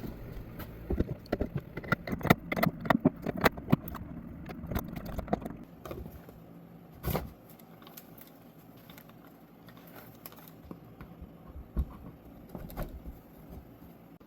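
Hard objects clicking and knocking as they are handled. The clicks come thick and fast for about the first six seconds, with one louder knock about seven seconds in, then a few scattered clicks.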